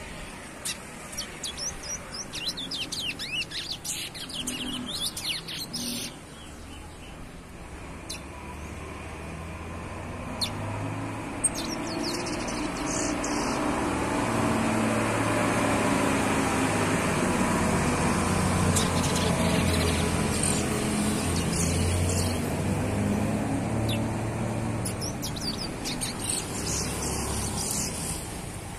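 Young chestnut-bellied seed finch (curió) singing in several bursts of quick, high twittering phrases. A low engine rumble swells up in the middle and fades away again, louder than the song at its peak.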